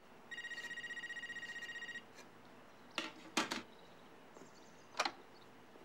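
A wall-mounted corded landline telephone rings once, a rapid high trill lasting under two seconds. It is followed by a few sharp clicks and knocks.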